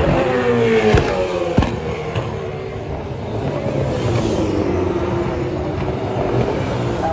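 V8 touring race cars running on the circuit. At the start an engine note falls away, with two sharp pops about a second and a second and a half in. Near the middle a car passes close by, its engine note rising and then falling.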